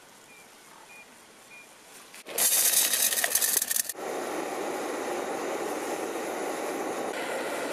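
Gas torch flame hissing steadily while it heats lead pieces in a stainless steel mug, the lead starting to melt. It follows a short, loud burst of hissing and crackle about two and a half seconds in.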